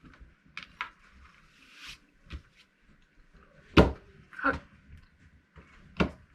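Scattered knocks, clicks and small handling sounds of people eating from an opened can, with a sharp knock nearly four seconds in and smaller ones about half a second later and near the end.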